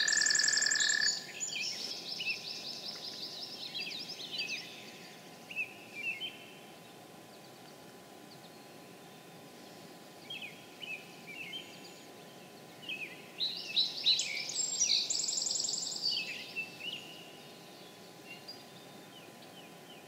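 An American toad's long, steady trill cuts off about a second in. Songbirds sing over it: a fast, complex song at the start and again about 13 seconds in, with scattered chirps between.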